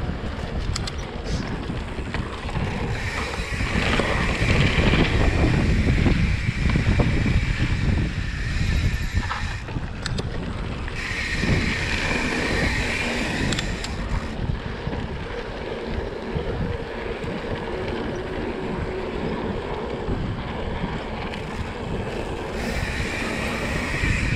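Wind buffeting an action camera's microphone as a mountain bike rolls fast down a dirt trail, with the low rumble of the tyres and frame over the ground. A higher buzz comes and goes three times.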